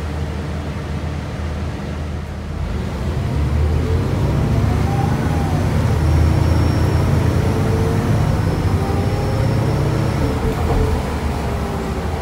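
Cummins Westport ISL-G natural-gas engine and Allison B400R6 six-speed automatic transmission of a 2008 New Flyer C40LFR transit bus, heard from inside the cabin while the bus drives. It grows louder about three seconds in as the bus pulls harder, with a whine that climbs and falls back a few times as the transmission shifts up, then eases near the end.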